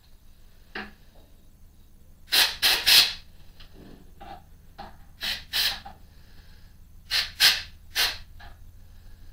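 Short hissing blasts from a compressed-air blow gun, mostly in quick groups of two or three, blowing drill chips out of the lathe's electrical box.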